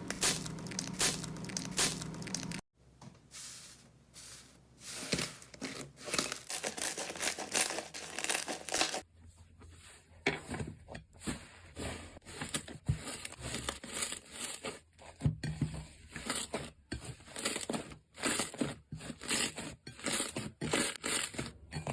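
Hands playing with slime: a dense run of quick crackles and pops as it is squeezed, pressed and stretched. The texture changes abruptly a few seconds in and again about nine seconds in.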